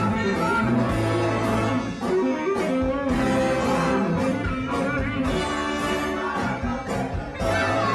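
Rock band playing live, with guitar to the fore over a steady low line and a regular beat.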